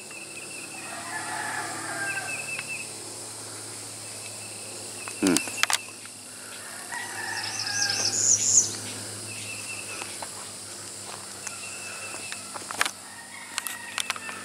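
A rooster crowing twice, one long call about a second in and another about seven seconds in, over the thin, steady trill of insects. A sharp knock sounds about five seconds in.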